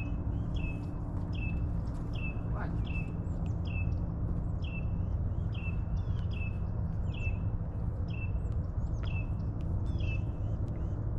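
A bird repeating a short, high chirp about twice a second, over a steady low rumble.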